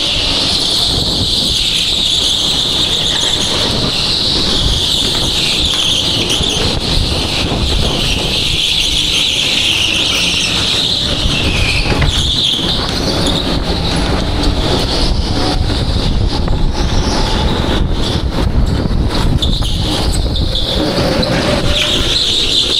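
Go-kart driving at speed on an indoor track, heard from on board. There is a steady high whine that wavers up and down with speed, over a constant low rumble.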